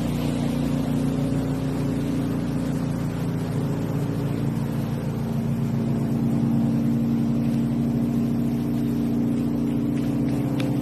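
A boat motor running steadily with an even low hum. A few faint clicks come near the end.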